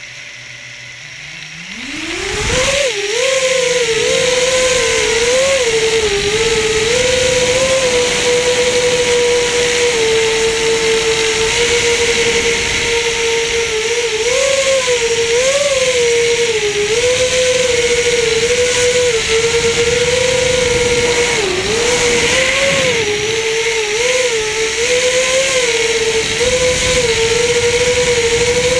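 FPV quadcopter's brushless motors spinning up from rest for takeoff, the whine rising steeply in pitch over the first few seconds. It then holds a steady high whine with frequent short rises and dips in pitch as the throttle changes in flight, heard up close from the drone's onboard camera.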